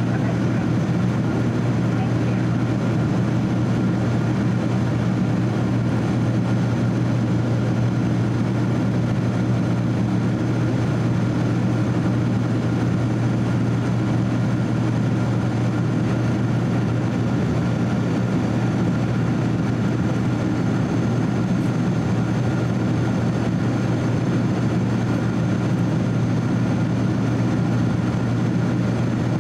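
Steady cabin noise inside a Boeing 767-300 airliner in flight: the even drone of its twin turbofan engines and the airflow, with a strong low hum and a thin, faint high whine over it.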